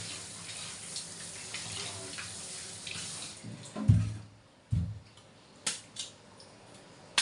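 Kitchen tap running into a stainless steel sink while a tuber is rinsed by hand under the stream. The water cuts off about three and a half seconds in, followed by two heavy thumps and a few sharp knocks as the tuber and a knife are handled in the sink.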